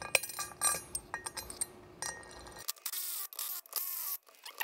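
Steel bolts clinking against the aluminum steering knuckle and wheel bearing as new 18 mm bolts are set in by hand. About two and a half seconds in, a Milwaukee Fuel cordless driver starts whirring as it runs the bolts in.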